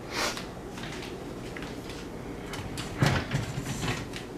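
Handling noise: two short scraping rustles, one just after the start and one about three seconds in, over a faint steady background hum.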